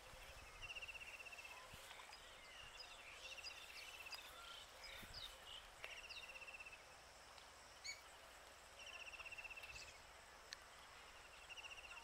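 Faint outdoor ambience: a high, rapidly pulsed trill of about a second repeats every one to two seconds, with scattered faint bird chirps between.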